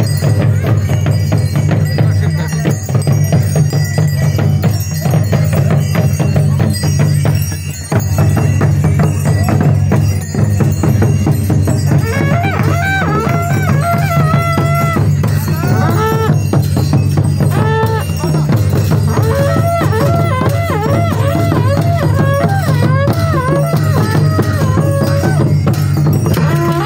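Traditional Nepali drum ensemble playing a dense, steady drumbeat with jingling percussion for a dance. About halfway through, a wavering high melody with held, gliding notes joins in over the drums.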